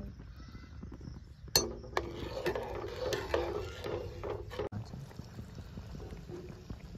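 Metal spatula stirring and scraping thick masala gravy in a kadai, with clinks of metal against the pan, set off by a sharp clack about a second and a half in. The stirring stops about two-thirds of the way through and a quieter steady sound follows.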